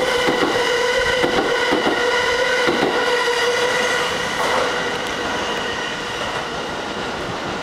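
Train running on rails: a steady whine over running noise, with clicks from the wheels during the first half. The clicks thin out and the sound eases slightly after about four and a half seconds.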